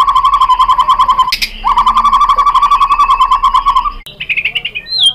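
White-rumped shama (murai batu) singing: a loud, fast trill of rapidly repeated notes that breaks off with a sharp click about a second in and starts again. Near the end it switches to higher whistled notes with a downward slur.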